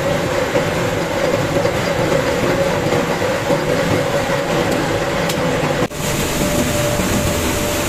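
Flour mill machinery running, close to a roller mill grinding wheat: a loud, steady mechanical din with a constant hum. About six seconds in it drops out for an instant and then carries on.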